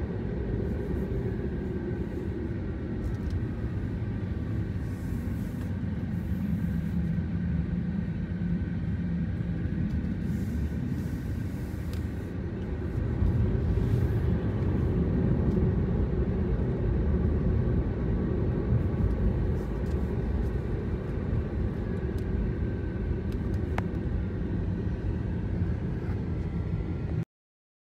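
Car driving along a road: steady engine and tyre rumble that grows louder about halfway through. The sound cuts out abruptly just before the end.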